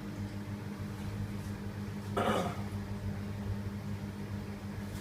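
Steady low electrical or machine hum of commercial kitchen equipment, with one short noisy burst about two seconds in.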